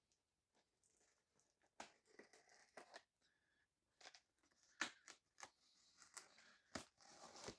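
Faint packaging handling while a power-tool box is unpacked: rustling and crinkling of wrapping and cardboard, with a few sharp knocks, the loudest about five seconds in.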